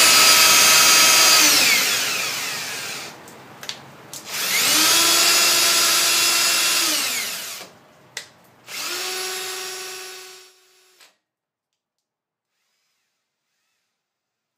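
Cordless drill spinning the threaded-rod lead screw of a homemade CNC Z-axis to run the carriage along its slides. The drill motor whines in three runs, each winding up, holding and then sliding down in pitch, with short clicks between them; the third run is shorter and quieter and cuts off suddenly.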